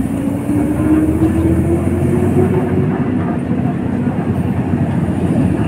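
Road traffic: a vehicle engine climbing steadily in pitch as it speeds up, fading about halfway through, over a steady rumble of passing traffic.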